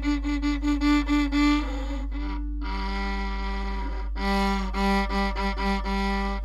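A violin is bowed: a higher note played in short quick strokes, about four a second, then a long held lower note, then quick short strokes on that lower note.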